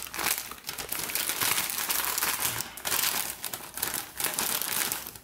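Plastic snack packet crinkling and rustling as a hand rummages inside it among crunchy fried snacks, with many small crackles.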